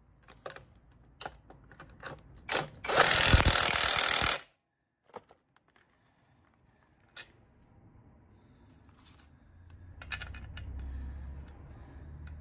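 Cordless impact wrench run in one short burst of under two seconds, about three seconds in, driving home a bolt on a Mazda MX5 mk1 engine. Light clicks and knocks of the tool and socket being handled come before it.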